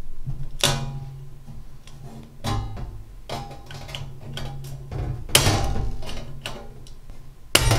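Hand-operated punch-and-die nibbler punching its way through 22 gauge steel sheet in a straight cut: a sharp clack with each squeeze of the handles, about six at uneven intervals of a second or two.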